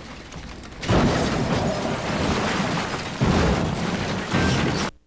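Loud rushing, booming crash noise from vehicle wrecks, surging suddenly about a second in and again past three seconds, then cutting off abruptly near the end.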